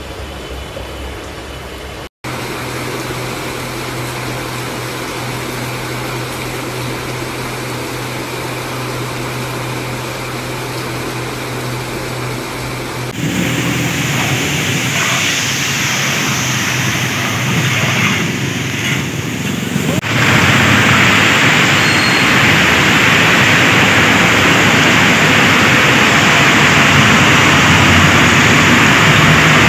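Rainy street ambience: a steady hiss of rain and running water with road traffic, getting louder over a few cuts. In the first part there is also a low steady hum.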